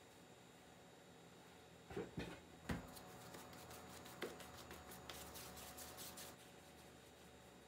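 Hands shaping yeast dough into balls. A few soft thumps come from about two seconds in, with faint rustling and ticking between them as the dough is worked.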